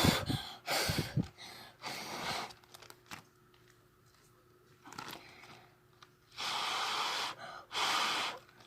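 A person blowing on freshly drawn Sharpie marker ink to dry it: several puffs of breath, the two longest near the end.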